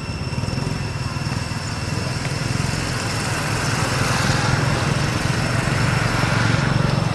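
A small engine running steadily, growing louder over the second half and easing off at the end, like a motor vehicle passing nearby.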